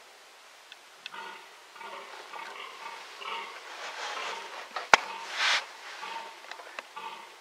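Fallow buck groaning in the rut: a run of deep, rhythmic belching groans, about two a second. A sharp click just before the middle is the loudest thing, followed by a short rustling burst.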